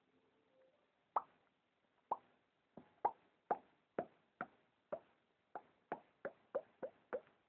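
A sleeping domestic cat making a run of short, sharp clicking sounds in its sleep, each one dropping in pitch. They start about a second in, come roughly two a second and quicken near the end.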